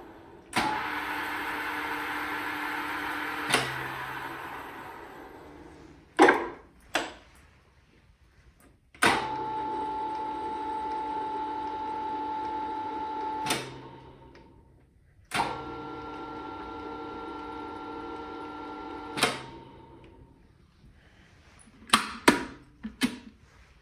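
Ai Hembrug DR1-LS lathe's 2.5 HP three-speed motor and spindle switched on and off three times, each run of three to four seconds starting and stopping with a click and winding down after each stop. Sharp clicks of the controls in the gaps, twice about six seconds in and a cluster near the end.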